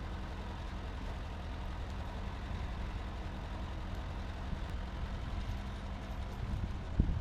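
Ford 8N tractor's four-cylinder engine running steadily at low speed, with a single thump near the end.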